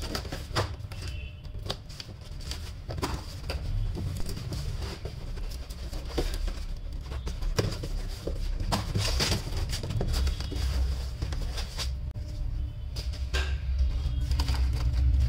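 Pocket knife slitting the packing tape on a cardboard box, then cardboard flaps scraping and rustling as the box is opened, in irregular scrapes and clicks.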